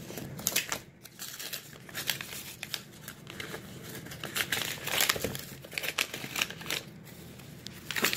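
Plastic or paper packaging being crinkled and torn open by hand, irregular rustling and crackling with several short louder rips.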